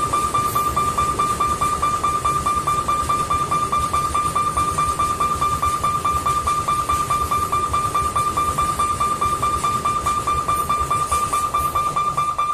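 Level-crossing warning bell ringing continuously as one steady high tone with a fast ripple. Under it is the low rumble and clatter of loaded coal wagons rolling past.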